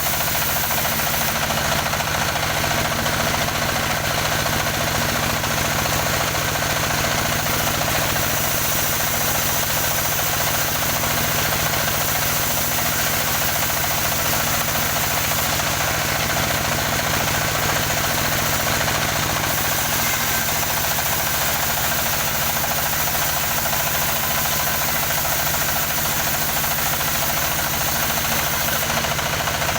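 Engine of a motorised wood saw running steadily at an even pace.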